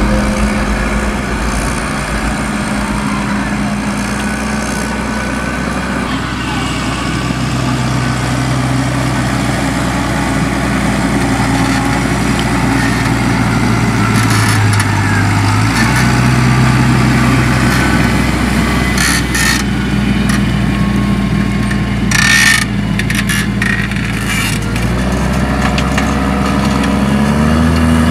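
New Holland T7070's 6.7-litre NEF six-cylinder diesel, tuned for extra boost, running through an open exhaust pipe. It holds a steady engine speed, with the note dipping and recovering about halfway and rising near the end. A few brief knocks come about two-thirds of the way in.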